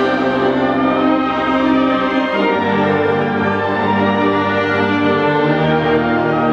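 Concert wind band of clarinets, saxophones and brass playing sustained chords over a held bass note. The bass moves to a new note about two seconds in and again about five seconds in.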